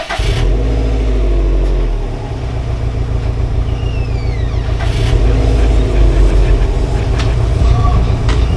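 A vehicle engine running with a deep, steady rumble, dipping slightly about two seconds in and then building again, with a few sharp clicks over it.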